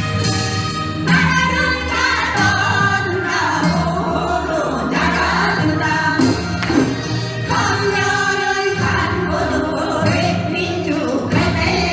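Voices singing a Korean folk song with instrumental accompaniment.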